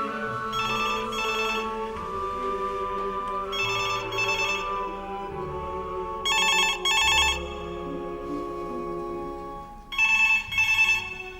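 Telephone ringing in the British double-ring pattern, four pairs of rings about three seconds apart, over background music.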